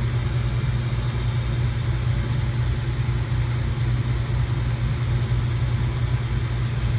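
Desktop PC running with a steady low hum from its cooling fans, even and unchanging.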